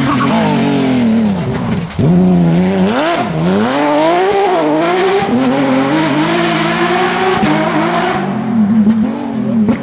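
Porsche flat-six rally car engine revving hard, its pitch falling and climbing with lifts and gear changes, with a brief sharp drop about two seconds in.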